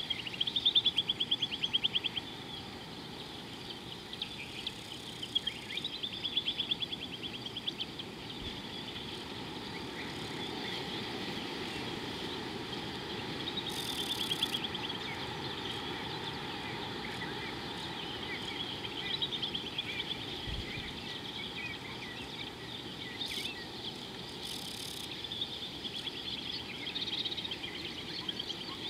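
Outdoor riverside ambience: repeated high, rapid chirping trills from small wild animals over a steady low hiss, the loudest trills about a second in.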